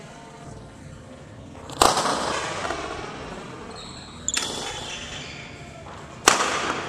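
Three sharp badminton racket hits on a shuttlecock, about two seconds apart, each ringing on in the sports hall's echo.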